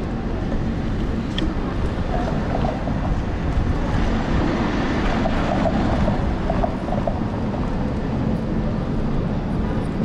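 Wind buffeting the microphone of a camera on a moving electric scooter's handlebars, a steady low rush, with city street traffic underneath.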